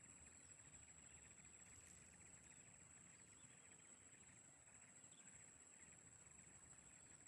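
Near silence: faint rural outdoor ambience, with a steady high-pitched tone and a faint, fast, even trill running underneath.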